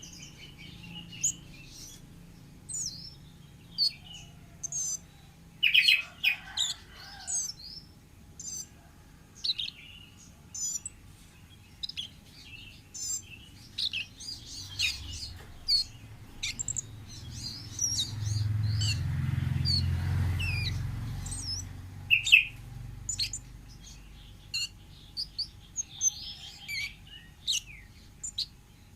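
Wild kemade bird singing: a string of short, sharp, high chirps and whistles. A low rumble swells for a few seconds past the middle.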